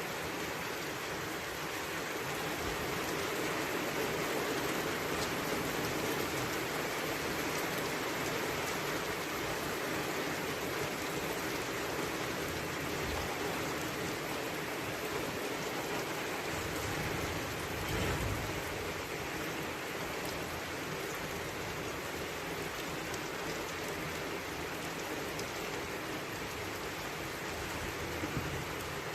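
Steady rain falling and pattering on surfaces, with a brief low thump about eighteen seconds in.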